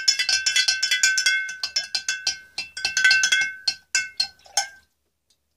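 A spoon stirring baking soda into water in a glass mason jar, clinking rapidly against the glass, which rings after each strike. The clinking stops near the end.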